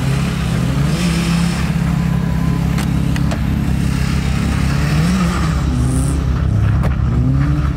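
A classic Lada Zhiguli's engine running as the car is driven. Its pitch wavers and rises and falls with the throttle. A few sharp clicks come through, about three seconds in and again near the end.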